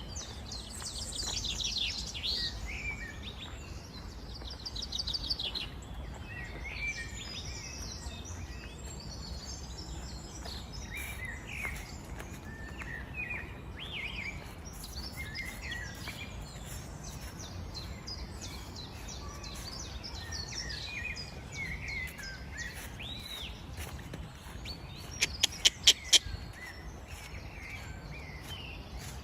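Several birds chirping and trilling over a low rumble of outdoor background noise. Near the end comes a quick run of about six sharp clicks, the loudest sound.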